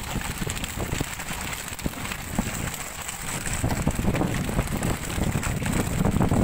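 Wind buffeting the microphone over rushing sea water and the rumble of a tuna fishing boat under way. The rumble grows heavier about two-thirds of the way in, with short knocks and splashes throughout.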